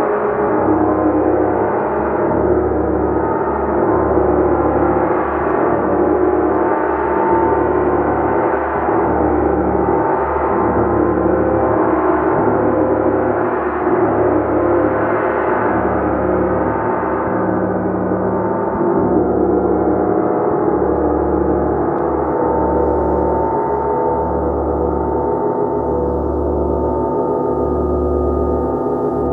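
A gong played continuously, a dense wash of overlapping sustained tones that swells gently with repeated soft strokes, the high shimmer thinning toward the end.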